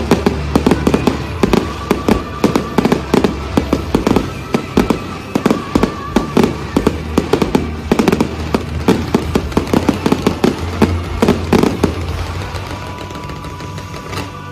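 Fireworks going off in a rapid, dense barrage of bangs and crackles that thins out about twelve seconds in, with music playing underneath.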